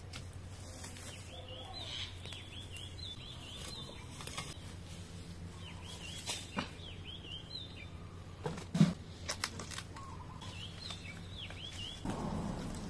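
Weeds being pulled and rustled by hand, with scattered snaps and one louder thump about nine seconds in. A bird calls in quick runs of short chirps three times in the background.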